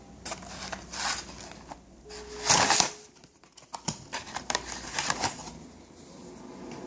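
Packaging rustling and crinkling as it is handled, a run of short rustles and clicks with the loudest crinkle about two and a half seconds in.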